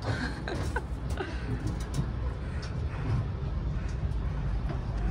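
Wind rumbling on the microphone outdoors on an exposed rooftop, with faint voices of people nearby and a few light clicks.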